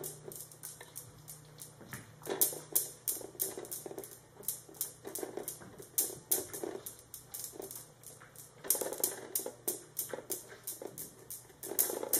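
Newton's cradle steel balls clicking against each other in irregular runs of sharp clicks as kittens bat them about.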